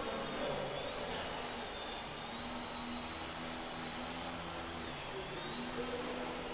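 Small radio-controlled foam aerobatic plane's electric motor and propeller buzzing in flight, with a thin high whine and a lower drone that rise and fall as the throttle is worked.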